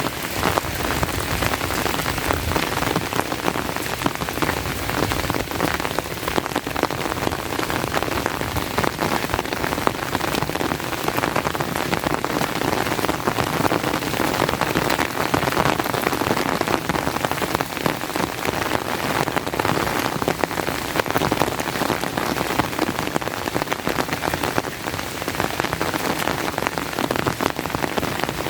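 Steady rain falling, an even hiss of water with many small drop hits packed closely together.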